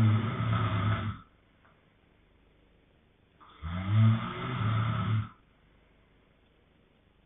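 A man snoring in his sleep at a slow, even rhythm. One low-pitched snore dies away about a second in, and a second snore, lasting about a second and a half, follows at about three and a half seconds, with quiet between them.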